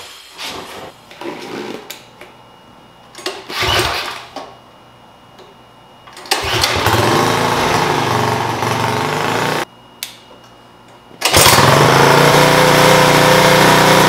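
Small single-cylinder engine of a homemade mini bike running: a few short bursts in the first seconds, then steady running from about six seconds in that cuts off abruptly near ten seconds, and runs again, louder, from about eleven seconds on.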